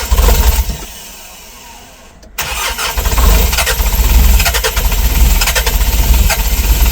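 Hyundai Palisade's four-cylinder diesel engine being started right after all four glow plugs were replaced. A loud burst as it turns over fades away, then from about two seconds in the engine runs loudly and steadily with a knocking diesel clatter.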